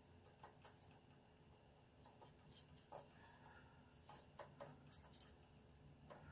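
Faint scratching and tapping of a paintbrush worked in a watercolour palette well, mixing a dark colour: a dozen or so soft, brief scrapes over quiet room tone.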